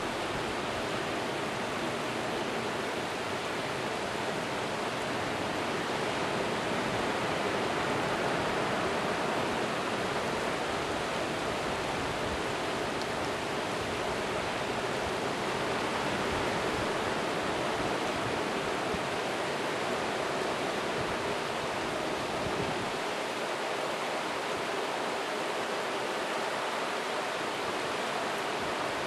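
Steady rushing of wind and breaking surf with no distinct events. The low rumble in it falls away about 23 seconds in.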